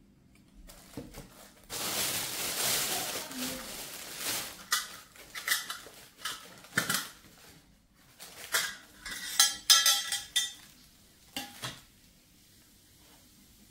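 Dishes and cutlery clinking and knocking together: a few seconds of hissing noise near the start, then a string of sharp knocks, several of them ringing briefly.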